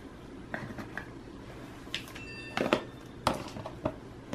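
Handling noises from unboxing: a few scattered soft taps and knocks as the charging cable, power adapter and paperboard box pieces are handled and set down, the loudest a little past halfway.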